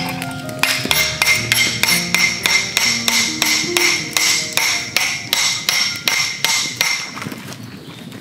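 A hammer striking the top of a steel lantern stand, driving its spike into the ground: a steady run of metallic clanks, about three a second, each with a short ring. The clanks start about a second in and stop about a second before the end.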